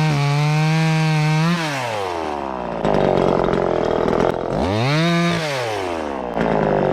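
Two-stroke chainsaw held at full throttle, then dropping off about one and a half seconds in. It goes into a cut through the branch wood, revs up and back down once, and bites into another cut near the end.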